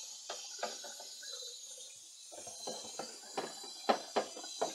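Sponge scrubbing a deep-fryer part over a stainless-steel sink: irregular rubbing strokes, with a few sharper knocks in the second half.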